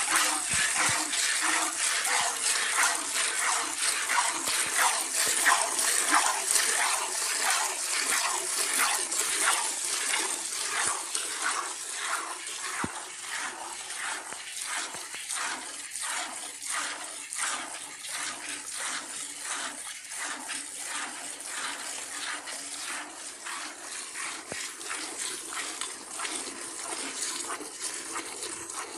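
Gir cow being milked by hand into steel pails: rhythmic squirts of milk hitting the pail and the milk already in it, about two to three squirts a second, getting gradually quieter.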